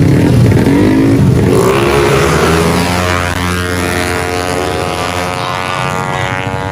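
Tuned 155cc automatic scooter drag bike engines running hard at high revs, the sound slowly fading.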